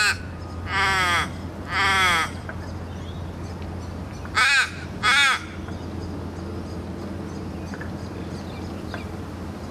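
Australian raven calling: drawn-out, wailing caws, each falling in pitch at its end. Two longer caws come in the first two seconds and two shorter ones about four and a half to five seconds in.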